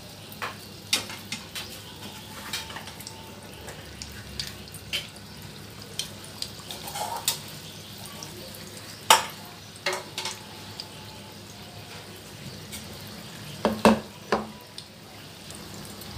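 Batter-dipped, cheese-stuffed dates (sweet gulgulay) frying in medium-hot oil with a steady sizzle. Sharp clinks and taps of a metal utensil run through it, loudest about nine seconds in and again around fourteen seconds.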